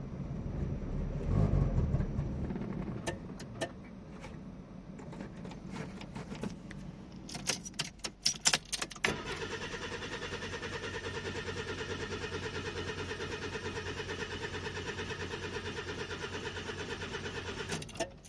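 1990 Mazda MX-5's 1.6 litre four-cylinder engine running unevenly, surging up about a second in and then falling away over the next few seconds; the surging is the fault being shown. Then a cluster of sharp clicks, followed by a steady, rapidly pulsing electronic buzz for most of the rest, ending in more clicks.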